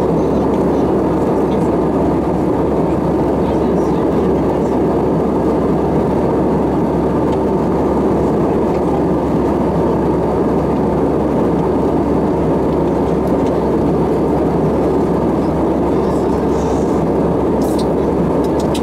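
Steady cabin noise inside an Airbus A320 in cruise flight: an even rush of air and engine hum that does not change.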